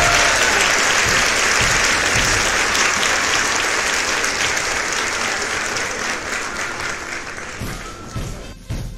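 Crowd applauding, the clapping slowly dying away. Music comes in near the end.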